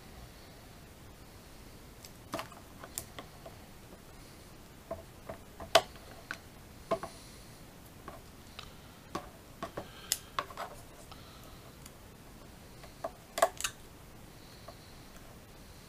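Scattered light clicks and taps of plastic model-kit parts and a hobby knife being handled and set down on a cutting mat. The loudest sharp clicks come about six seconds in and again near the end, where the knife's blade is worked against a plastic part.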